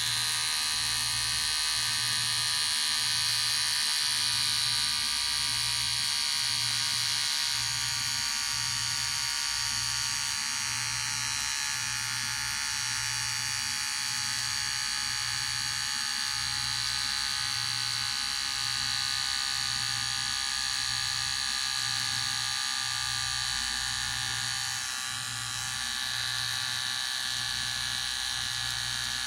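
Electric hair clipper running continuously with a steady high-pitched buzz and a low hum that pulses evenly, about once every second and a half. The sound dips briefly near the end.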